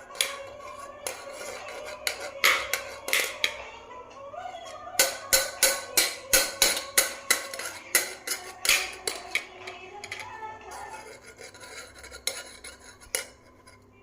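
Utensils clinking and scraping against a cooking pot: a run of sharp taps, loudest and quickest in the middle at about three a second.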